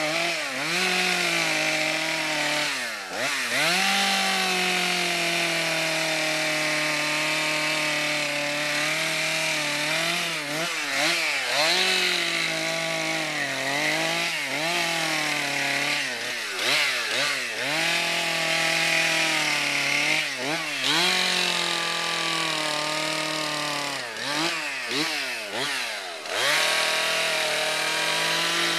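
Stihl two-stroke chainsaw running at high throttle as it carves into a wooden stump. The engine drops in pitch and climbs back again and again, often several times in quick succession, as the throttle is eased off and reopened between cuts.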